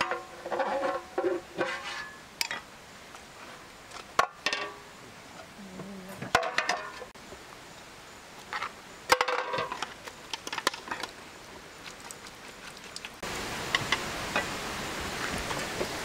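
A metal spoon clinks and scrapes against a cast-iron pan and china plates as fried minced meat is served onto khinkal, in a handful of sharp clinks. Short snatches of music fall between them, and a steady outdoor background comes in near the end.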